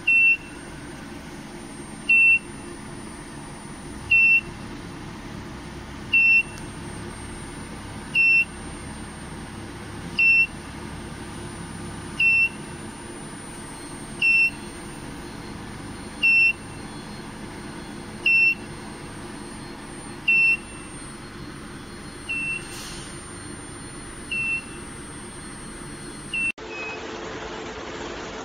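A portable induction preheat heater's beeper giving short high beeps about every two seconds, a dozen in a row, the last couple quieter, over the unit's steady hum.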